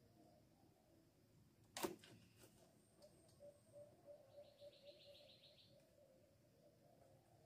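A single sharp snap about two seconds in, followed by a few lighter clicks, from sticks being handled while a bird trap is set. A bit later comes a short, faint, rapid trill of about eight notes a second, a bird call.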